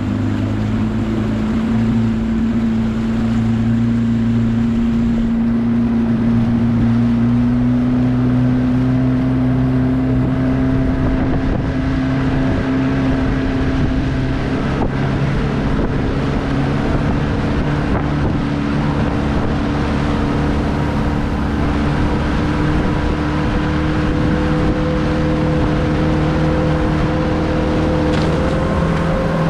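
1984 Johnson 120 hp V4 two-stroke outboard driving a bass boat at speed across the water, its pitch climbing slowly and steadily as the boat picks up speed, with water rushing along the hull.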